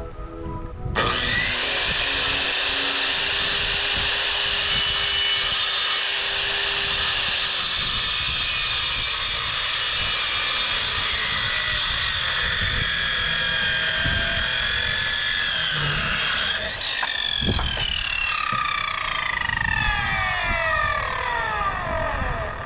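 Makita handheld circular saw started about a second in and cutting through a wooden board, its motor and blade whining steadily under load. Some sixteen seconds in the trigger is released and the blade spins down with a falling whine.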